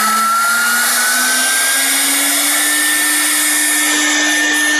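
CNC router spindle running with a steady rushing noise and a whine that climbs in pitch over the first two or three seconds, then holds steady.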